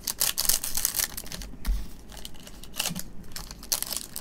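Foil trading-card pack wrappers crinkling and rustling as a stack of packs is handled, in quick irregular bursts of crackle.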